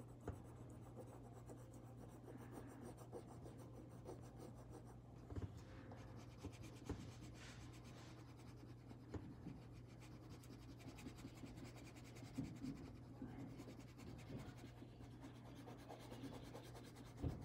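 Faint scratching of a coloured pencil shading on paper, with a few light taps, over a steady low hum.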